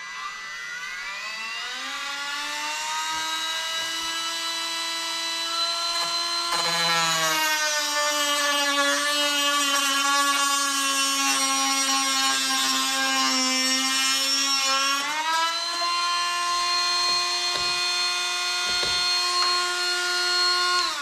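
Cordless rotary tool with a cut-off wheel spinning up to a steady high whine, cutting a black tool-cart trim strip. For about eight seconds in the middle the pitch drops as the wheel is loaded in the cut. It then climbs back to full speed and winds down at the end.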